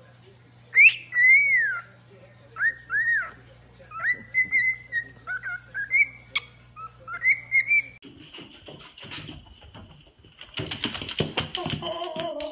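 Cockatiel whistling a run of clear notes that slide up and down, some in short rising-and-falling phrases and some as quick warbled notes. At about two-thirds of the way through the whistling stops, and a jumble of indistinct scuffling noise follows, with a short voice-like sound near the end.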